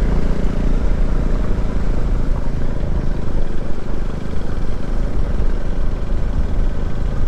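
Motorcycle running at a steady pace on the road, with a low engine rumble and heavy wind rush on the microphone.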